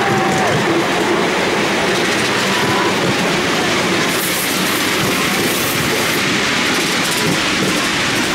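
LNER 458 miniature steam locomotive and its ride-on cars running along the miniature track, heard from on board: a steady running noise of wheels on rail. A held tone ends about half a second in.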